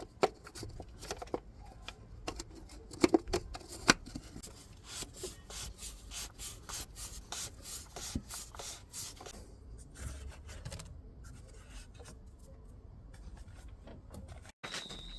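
Hand work on engine parts: a few sharp clicks and knocks, then a quick run of short rubbing or scraping strokes, fading to quieter rubbing.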